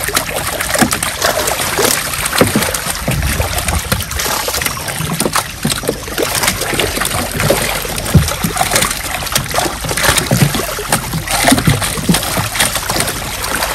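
Crowd of large fish thrashing in shallow water trapped inside a net, with constant splashing and sloshing and many short sharp splashes throughout.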